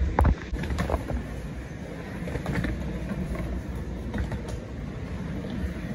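Wheels rolling fast over a concrete warehouse floor, a steady low rumble, with a few sharp knocks right at the start.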